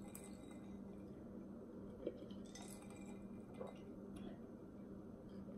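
Faint sounds of a glass of ice water being lifted and sipped from: a couple of light clicks of ice against glass, about two and three and a half seconds in, over a low steady hum.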